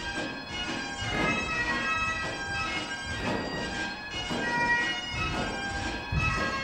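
Bagpipe music playing a lively dance tune, melody notes moving over a steady beat.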